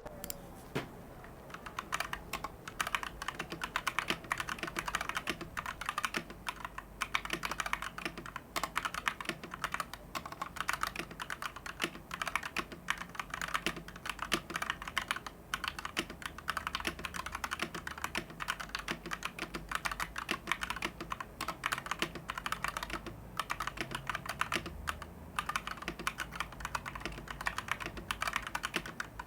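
Typing on an XVX M84 75% mechanical keyboard with PBT keycaps: rapid, continuous keystrokes clacking.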